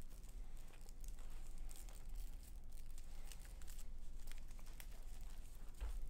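Faint rustling with a few light clicks of things being handled, over a low steady hum.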